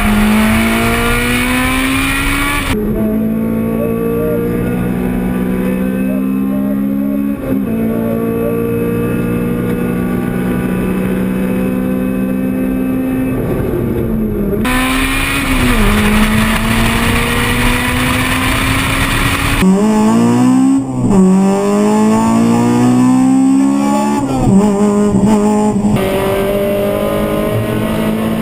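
Honda VTEC four-cylinder engines revving hard on track in several clips cut one after another. The engine pitch climbs and drops back at each gear change, with a quick run of shifts in the second half.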